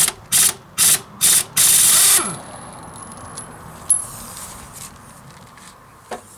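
Air impact wrench hammering on the crankshaft pulley bolt of a Toyota 3S-FE engine through a 19 mm socket, in about four short bursts and then one longer burst near two seconds in, after which the wrench winds down.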